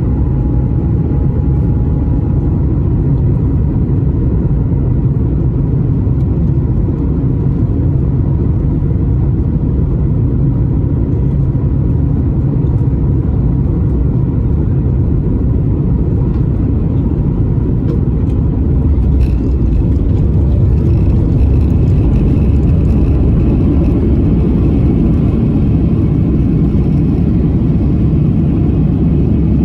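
Boeing 737 MAX cabin noise during the landing: a loud, steady low rumble of the engines and rushing air. It grows a little louder about two-thirds through, with a few faint clicks and a thin higher whine.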